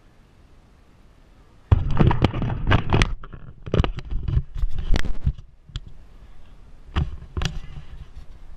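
Handling noise of an action camera being taken down and moved: knocks, bumps and scraping against its microphone, starting suddenly about two seconds in and going on for several seconds, then a few separate knocks near the end.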